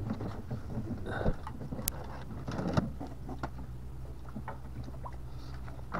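Scattered wooden knocks and clicks from a small folding wooden rowing dinghy and its oars working in the rowlocks, with one sharp tick about two seconds in, over a steady low hum.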